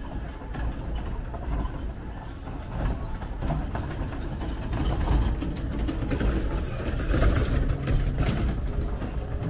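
An engine running with a low rumble, louder in the second half.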